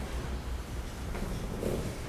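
Pause in a talk: room tone with a steady low hum and a faint short sound about one and a half seconds in.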